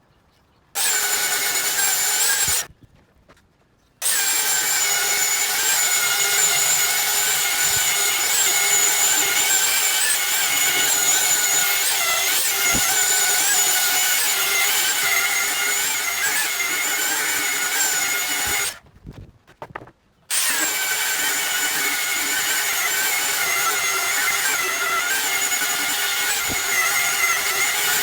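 Electric power sander running steadily with a high motor whine, cutting out twice for a moment and starting again.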